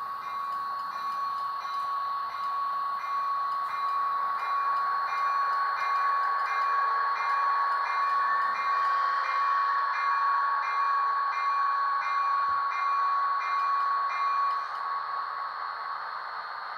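Sound decoder of a Rapido F40PH HO model locomotive playing its diesel locomotive sound through its small speaker, with a steady tone that swells in the middle and eases off. A short note repeats about every 0.7 s and stops about three-quarters of the way through.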